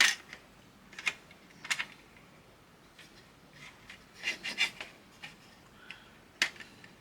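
Small plastic model-kit parts and hobby tools being handled and set down on a workbench: a few sharp clicks and taps, with a quick cluster of clatter about four seconds in.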